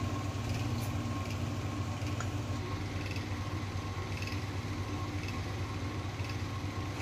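A steady low hum with a thick curry gravy simmering in a pan.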